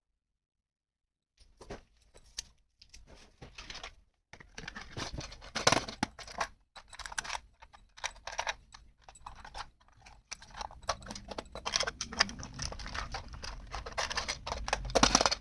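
Small plastic toy kitchen pieces clicking, tapping and rustling as they are handled and set out, starting about a second and a half in, with a louder clack around six seconds.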